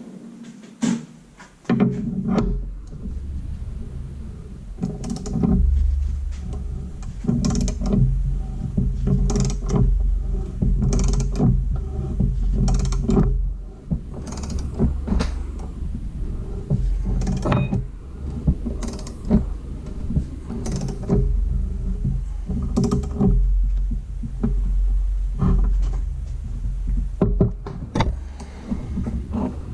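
Ball joint press being worked with hand tools to force a new ball joint into a steel upper control arm: irregular metal clicks, creaks and knocks over a heavy low rumble.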